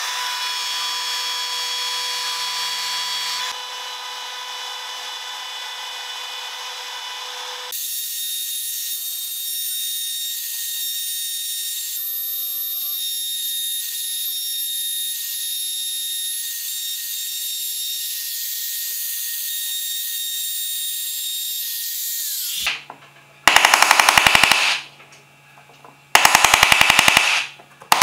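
Compact trim router running at high speed with a steady whine as it cuts a bow-tie recess into a wooden board, its tone changing twice in the first eight seconds, then cutting off abruptly. It is followed by two quick runs of rapid, very loud sharp knocks: a hammer striking a chisel to clean out the routed recess.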